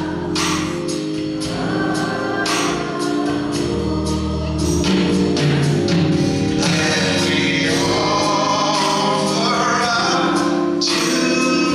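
Gospel music: a choir singing sustained chords over instrumental backing with a regular percussive beat.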